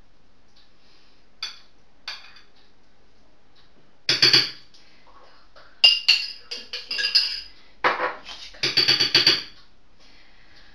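A spoon knocking and clinking against a mayonnaise jar as mayonnaise is scooped out: two single taps, then, from about four seconds in, several runs of quick rattling clinks.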